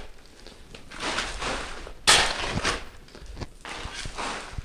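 Steel shovel digging into gravelly soil: scraping and crunching as the blade bites, with the sharpest, loudest scrape about two seconds in, and dirt and gravel tossed onto a plastic tarp.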